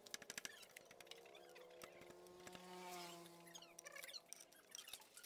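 Near silence, with a few faint clicks and taps from hand tools and the cam chain being handled on a Suzuki Satria FU 150 cylinder head, most of them in the first second.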